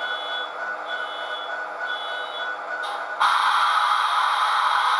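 Model diesel locomotive's DCC sound decoder playing through its small onboard speaker: a steady engine rumble with three short high beeps about a second apart. About three seconds in it jumps to a louder, hissing sound that holds.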